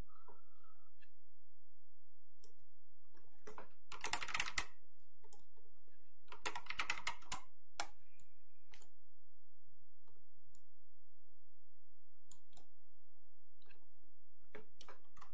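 Computer keyboard typing in two short bursts, about four seconds in and again about six and a half seconds in, with scattered single clicks of keys and mouse in between.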